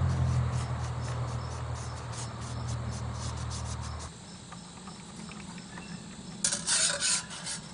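Crickets chirping steadily, over a steady low hum that stops about four seconds in. Near the end come a few short, loud scraping rattles.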